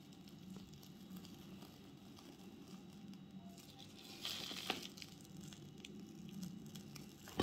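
Plastic piping bag crinkling and squishing as whipped cream is squeezed out of it, with a louder rustle and a click about four seconds in. A faint low hum lies underneath.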